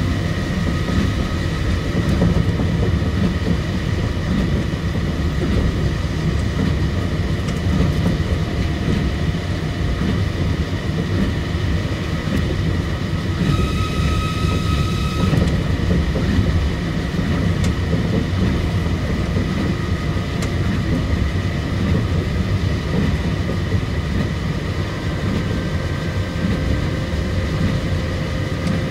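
Osaka Monorail 2000 series train running, a steady low rumble with a steady motor whine over it. About halfway through, a set of higher whining tones sounds for about two seconds, then drops away.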